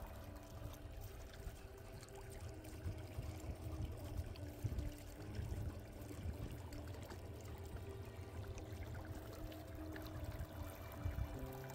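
Water rushing and splashing along the hull of a small boat under way, with faint background music.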